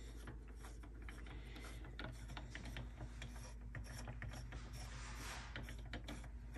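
Faint, irregular clicking and light metallic ticking as the 3D printer's threaded Z-axis lead screw is turned by hand and unscrewed from the gantry, with small handling knocks on the printer frame.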